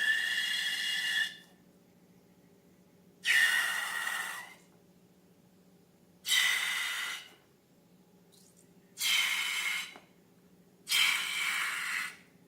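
Repeated rushes of air, five bursts each about a second long and two to three seconds apart, each a hiss with a whistling tone in it.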